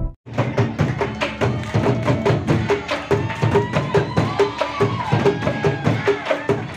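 Rampak bedug: several large bedug drums beaten with sticks in a fast, driving interlocking rhythm, with a wooden kentongan slit drum knocking a steady beat about twice a second. The drumming starts abruptly a fraction of a second in, and a wavering tone sounds over it midway.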